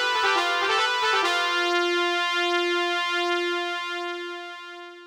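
Closing music sting on keyboard: a quick run of notes, then one held chord that pulses and fades out.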